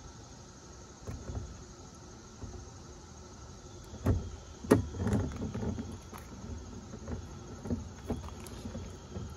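Knocks and scraping as a tow mirror is worked into its mount on a pickup door. The two sharpest knocks come about four seconds in, followed by a run of softer knocks and rubbing.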